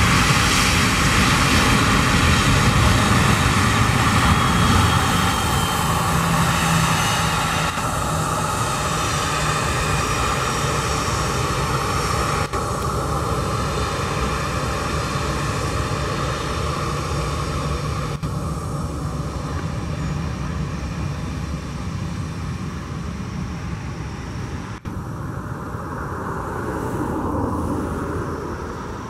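Airbus A320 jet engines running at taxi power as the airliner rolls past: a steady low rumble under a high whine whose pitch falls as it goes by. The sound then slowly fades as it moves away and swells briefly near the end as the engines turn toward the listener.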